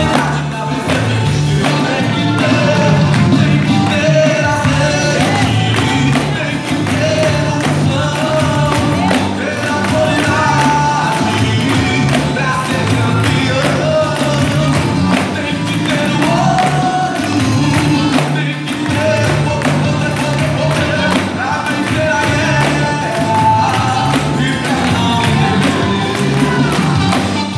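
Gospel song with a group of pandeiros playing a steady rhythm, the jingles shaking on every stroke over a bass line and melody. The jingles come in more sharply about five seconds in.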